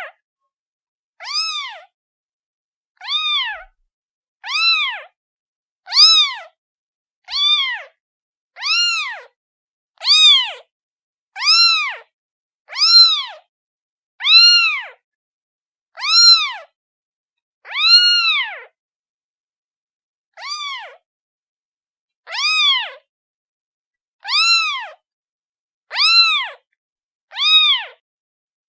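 Domestic kitten meowing over and over: high, short mews that rise and fall in pitch, about one every second and a half, with a slightly longer pause a little past halfway.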